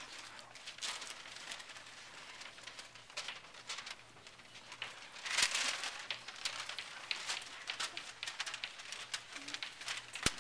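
Sheets of paper rustling and crinkling as they are handled and waved, among scattered small clicks and shuffling. The loudest rustle comes about five seconds in.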